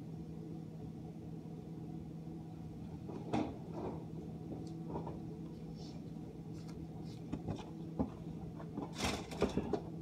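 GE dishwasher running with a steady hum. From about three seconds in there are irregular clicks and knocks, the loudest cluster near the end.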